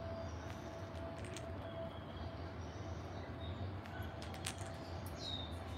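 Quiet room background: a steady low hum with a few faint clicks, and a faint short falling whistle near the end.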